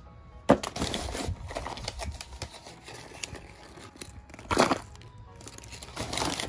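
Crumpled old newspaper crinkling and rustling as hands dig through a cardboard box of paper-wrapped items. It starts abruptly with a sharp crackle about half a second in, and there is another loud rustle about two-thirds of the way through.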